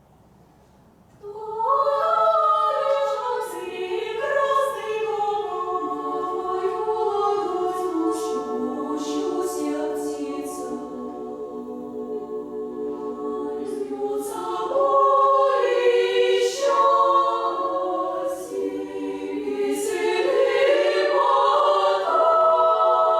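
Women's choir singing in several sustained parts in harmony, coming in about a second in after near silence, with hissing sung consonants now and then.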